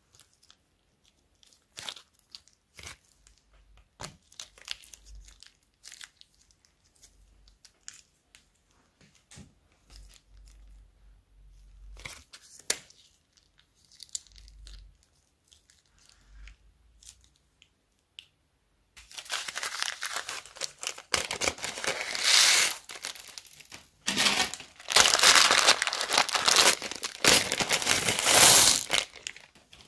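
Plastic bags crinkling and tearing as they are handled and emptied into a bowl. Sparse, faint crinkles and clicks for the first two-thirds, then dense, loud crinkling for the last ten seconds, with a brief pause near the middle of that stretch.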